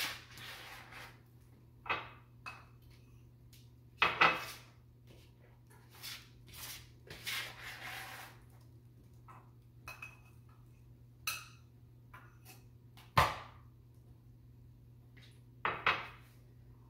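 Kitchen prep handling sounds: scattered knocks and clatters of a bowl, knife and cutting board on a countertop, with a longer scraping sound about seven seconds in, over a steady low hum.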